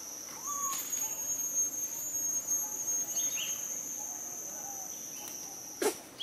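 Steady high-pitched drone of insects, with a few faint short chirps and one sharp click near the end.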